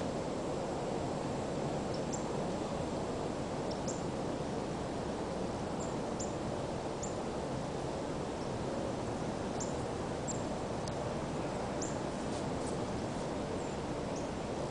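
Steady outdoor background noise, with small birds chirping faintly now and then: about a dozen short, high chirps over the stretch.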